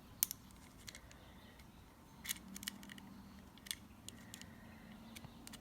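Small metal parts of a nitro RC engine (cylinder sleeve and piston) clicking and tapping lightly as they are handled and refitted: a handful of short, sharp clicks spaced irregularly, over a faint low hum.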